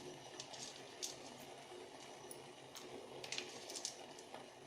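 Faint, scattered light ticks and pops, several seconds apart, over a low steady hum, from a vessel of water with jaggery, ginger, cinnamon, tulsi and black pepper heating on the stove.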